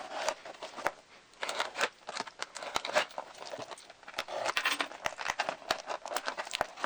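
A toy booster's packaging being torn open and crinkled by hand, with scattered sharp clicks and taps as the box and parts are handled.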